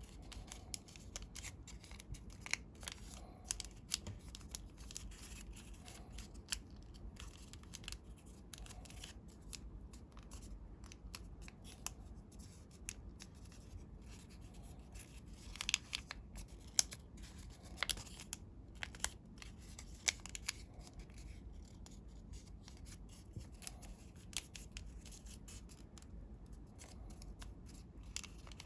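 Coloured paper being folded and creased by hand, with many short, crisp clicks and rustles, busiest about halfway through.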